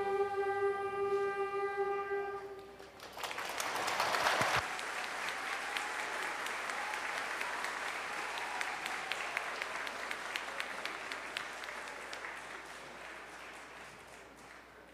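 The song's last held chord ends about two and a half seconds in, and the audience breaks into applause, swelling quickly and then fading gradually near the end.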